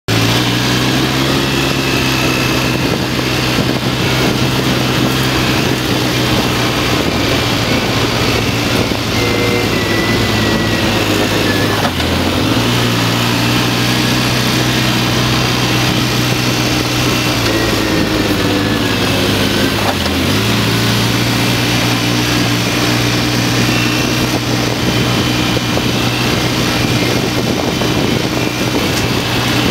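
Off-road vehicle's engine running steadily while riding along a gravel trail, its note dipping briefly twice, about twelve and twenty seconds in, as the throttle eases off.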